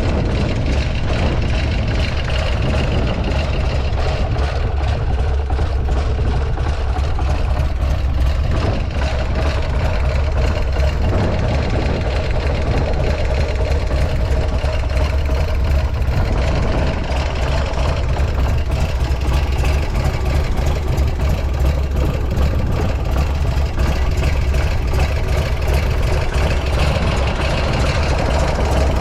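Buell X1 Lightning's air-cooled 1203 cc V-twin idling steadily, warm after a cold start. The seller reports no abnormal noises.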